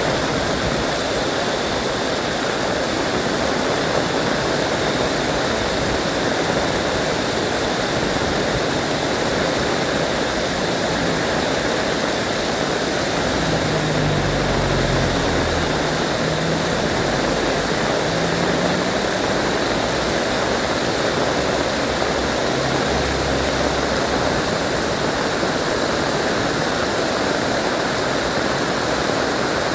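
Heavy rain pouring down steadily in a dense, even hiss. A low rumble swells and fades in the middle.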